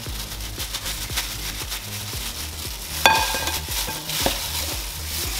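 Disposable plastic gloves crinkling as cut limes and salted raw chicken drumsticks are handled in a glass bowl. About three seconds in, a sharp ringing clink as a kitchen knife strikes the glass bowl, with a smaller knock a second later.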